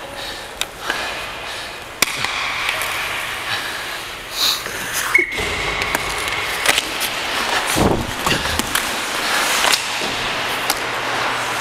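Hockey game play: skates scraping and several sharp clacks and knocks of sticks, puck and boards, with a brief steady high tone about five seconds in.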